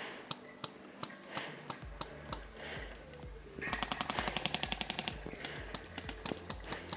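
Airsoft gun firing a rapid full-auto burst of sharp clicks lasting under two seconds, about halfway through, with scattered single airsoft shots before it. A pulsing bass beat of background music comes in about two seconds in.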